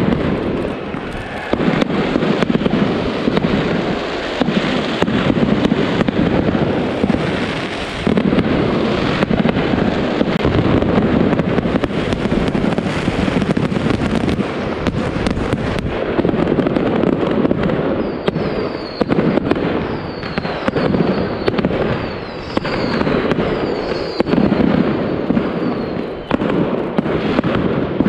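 Fireworks going off in a dense, continuous barrage of bangs and crackling. From a little past the middle, short falling whistles come again and again among the bangs.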